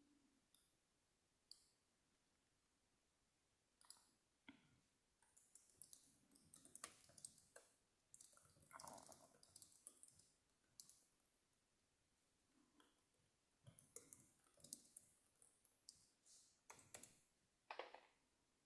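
Near silence broken by faint scattered clicks and short scratchy rustles, heaviest in the middle and again near the end.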